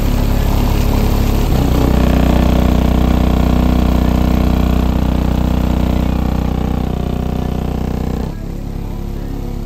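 Deep bass played very loud through car-audio subwoofers, held low notes that step up in level about one and a half seconds in and drop off sharply near the end.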